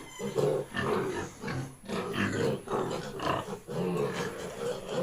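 Weaned piglets grunting: a continual run of short grunts, several a second, from a group of pigs.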